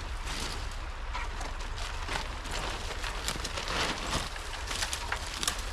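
Brush and twigs rustling and crackling with many small snaps as someone pushes through dense branches and vines, over a low steady wind rumble on the microphone.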